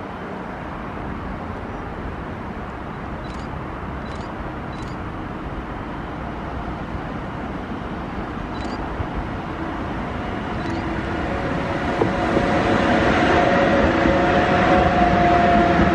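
Freight train of tank wagons headed by two electric locomotives approaching and passing, its rolling rumble growing steadily louder; from about eleven seconds in a steady humming whine comes in as the locomotives come alongside.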